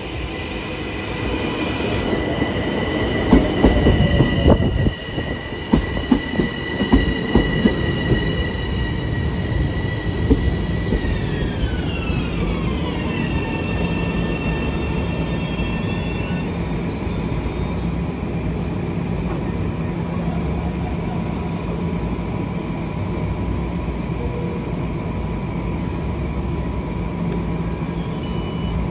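Long Island Rail Road commuter train passing at speed. Its high whine drops in pitch partway through as it goes by, and its wheels clatter over the rail joints in the first half, leaving a steady rumble.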